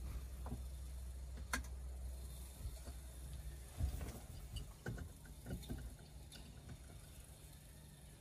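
Scattered light clicks and taps of a tool on the shifter's air line fittings as they are tightened down, over a low steady hum that stops about four seconds in.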